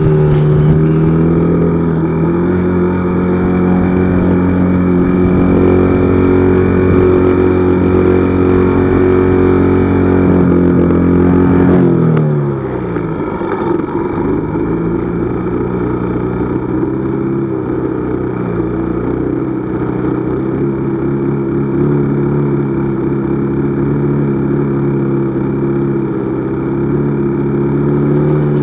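Royal Enfield motorcycle engine running under load on a rough, rocky riverbed track. The pitch holds steady, then drops and the sound eases about twelve seconds in as the throttle comes off, before picking up a little again.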